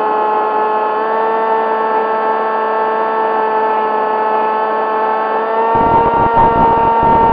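Electric motor and propeller of an AR Wing FPV flying wing whining at a steady pitch, heard through the onboard camera. About six seconds in, the pitch rises a little and a low wind rumble on the microphone joins it.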